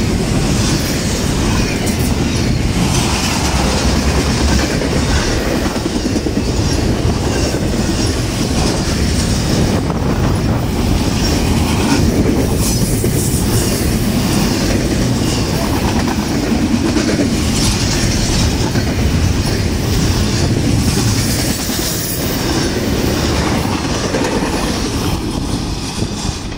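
Norfolk Southern double-stack intermodal freight train's container-laden well cars rolling past, steel wheels clattering on the rails in a steady rumble. It gets quieter near the end as the last cars move away.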